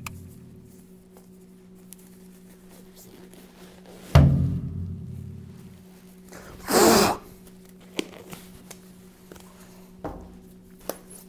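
A single loud timpani-like drum hit about four seconds in, ringing out low, laid over a faint steady music drone as an edited comic sound effect. A short rustling burst of about half a second follows near the middle, then a few light clicks, as disposable gloves are pulled on.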